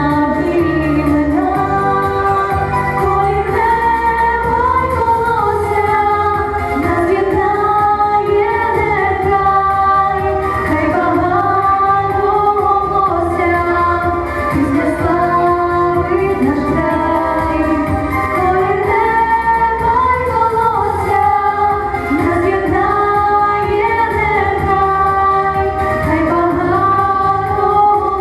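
Female vocals singing a Ukrainian song over an instrumental accompaniment, with long held, wavering notes.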